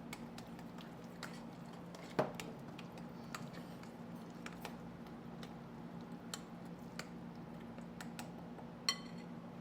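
A utensil clinking and tapping against a mixing bowl while stirring a wet crab cake mixture: irregular light taps, a sharper knock about two seconds in and a ringing clink near the end. A steady low hum runs underneath.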